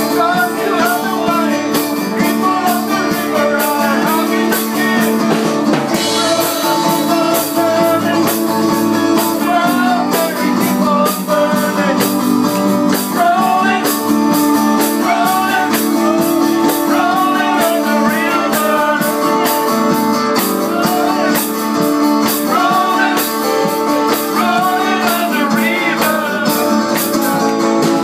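Live band music: several men singing together over guitars, with a steady beat.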